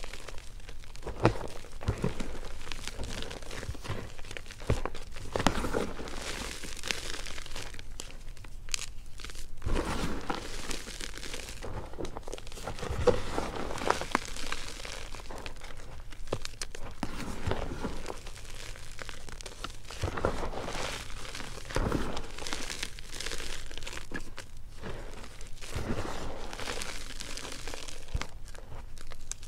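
Long-nailed fingers digging into and squeezing crumbled gym chalk and baby powder, giving irregular soft crunching and crumbling, with a few sharper crunches.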